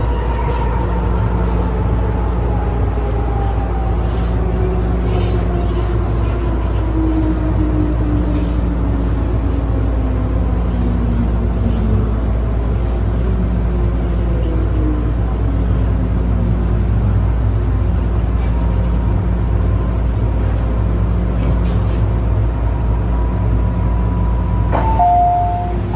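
An MTR M-train's traction motors whine under braking, several tones gliding down in pitch over a steady rumble as the train slows to a stop. This is the moderate braking 'ghost scream' that car C258 still has after overhaul. Near the end a clunk is followed by a two-note electronic door chime.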